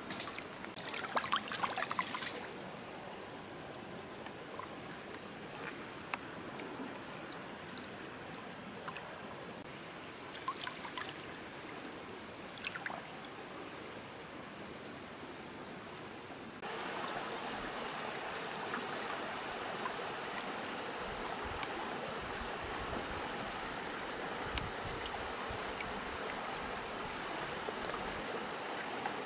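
A large eel thrashing and splashing in shallow water for the first couple of seconds, over a steady high insect trill and trickling stream water.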